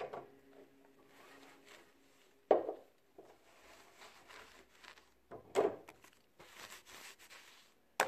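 Dusting a wooden shelf: a cloth rubbing over the wood, with a vase and other items lifted and set back down on it. There is a sharp knock about two and a half seconds in, another a little after halfway, and a short click at the very end.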